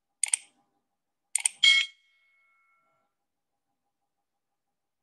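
Subscribe-button animation sound effects: a quick double mouse click, another double click about a second later, then a short notification-bell ding that rings out for about a second.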